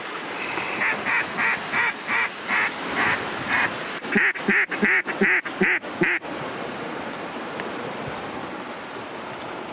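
Hen-mallard quacking: a run of evenly spaced quacks, about three a second, for the first few seconds, then a louder run of about six quacks that stops about six seconds in. Steady lapping of water runs underneath.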